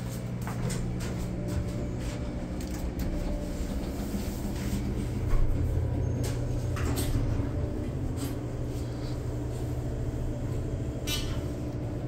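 Passenger elevator running as the car travels: a steady low hum, with scattered clicks and knocks over it.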